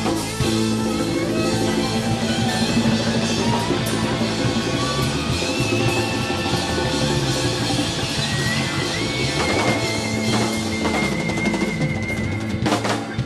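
Live rock band playing an instrumental passage on drum kit, electric guitars and keyboards. In the second half one instrument holds a long high note, and near the end the band plays a few loud accented hits.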